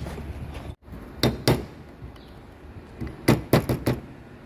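Sharp metallic clicks and knocks from hand tools being handled against the steering rack housing and steel workbench: two about a second in, then four in quick succession near the end.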